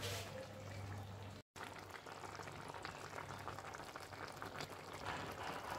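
Papad curry simmering in a kadai on a gas stove, a steady bubbling with many small pops. A low hum sits under the first second and a half, and the sound drops out for an instant at an edit.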